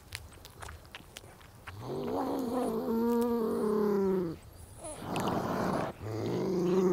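Nutria (coypu) giving two long moaning calls, each rising and then falling in pitch. The first lasts about two and a half seconds; the second, shorter one comes near the end. Between them is a short burst of noise.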